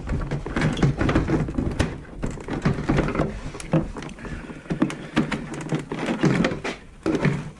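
Plastic snowmobile windshield being handled and pressed onto the hood, its plastic tabs knocking and clicking irregularly against the mounts; the middle mount's rubber grommet is missing, so the tab there does not seat.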